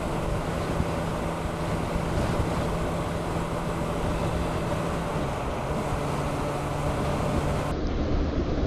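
Suzuki Bandit 650's inline-four engine running at steady motorway cruising speed, under heavy wind noise on the helmet-mounted microphone. The sound turns abruptly duller near the end.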